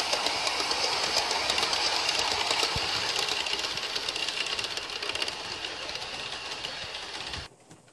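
Bachmann Class 411 4-car EMU model train running on sectional track: a steady motor whir with a dense clatter of wheels over the rail joints. It is loudest as the train passes close, fades as the train runs away, and cuts off suddenly near the end.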